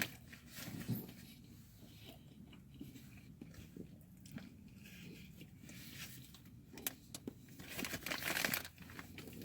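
Faint chewing and biting of a spinach feta wrap, with small mouth clicks. A brief rustling noise about eight seconds in.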